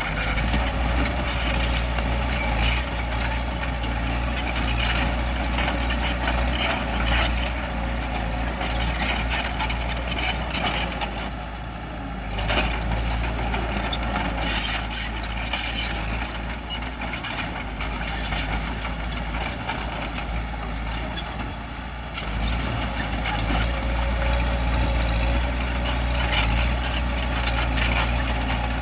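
Bulldozer's diesel engine running under load with a steady low drone, and frequent metallic clanks and knocks over it. The engine sound eases off briefly about twelve and twenty-two seconds in.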